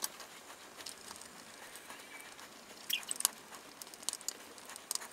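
Faint small clicks and scrapes of a screwdriver turning screws through a plastic 3D-printed motor holder into a stepper motor, with a couple of sharper ticks about three seconds in.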